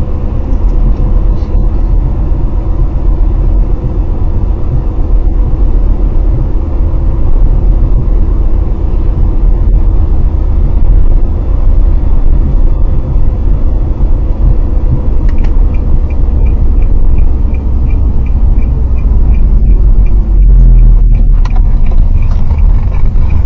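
Car running with a heavy, steady low rumble. About two-thirds of the way through, a faint high-pitched tick starts repeating a few times a second and continues to the end.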